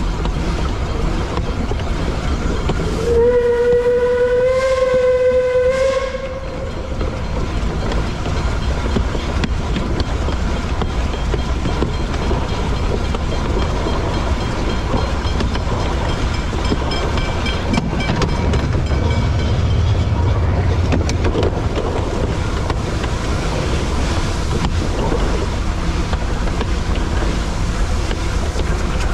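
Narrow-gauge heritage steam train running, with one steam-whistle blast of about three seconds near the start. After the blast comes the steady rumble and clatter of the train on the rails, with a faint high tone in the middle.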